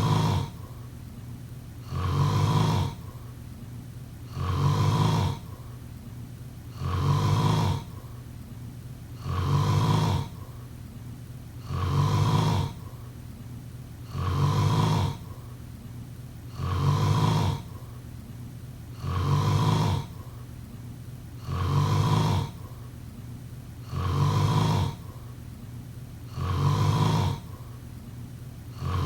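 A person snoring in a steady rhythm, one low snore about every two and a half seconds, about a dozen in all.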